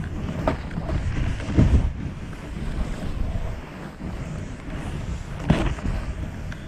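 A Never Summer Heritage DF snowboard hissing and scraping as it carves through deep fresh powder, with wind buffeting the camera microphone. A few louder thumps stand out, one a couple of seconds in and one near the end.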